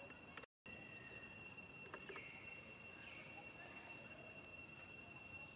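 Faint outdoor ambience of insects droning steadily at a high pitch, with a few short falling chirps about two and three seconds in. The sound drops out completely for a moment about half a second in.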